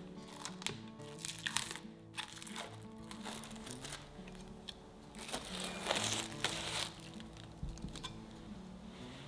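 Plastic cling film crinkling as it is peeled off the bottom of a square metal cake frame, loudest about five to seven seconds in, over soft background music.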